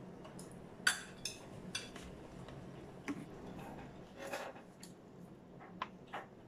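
Quiet sounds of eating at a table: scattered light clicks and taps of cutlery, dishes and food being handled, about half a dozen in all, with the sharpest about a second in.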